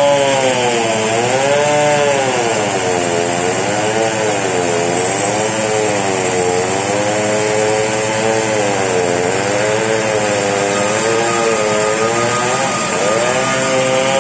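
Two-stroke chainsaw running under load as it splits a very large merbau log; its engine pitch rises and falls again and again as the chain bites into the wood and frees up.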